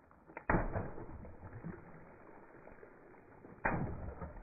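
Water balloons bursting under a slowly rolling car tyre: two sudden pops, about half a second in and near the end, each followed by water splashing onto the asphalt.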